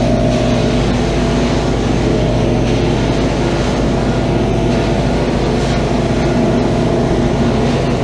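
Advance ET 700 portable carpet extractor running steadily: its vacuum motors and solution pump, set to 300 psi, making an even hum and rush of air while the carpet is cleaned.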